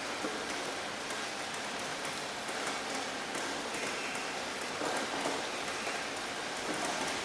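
Steady rain falling on a hard surface, a dense even hiss with many small drop ticks.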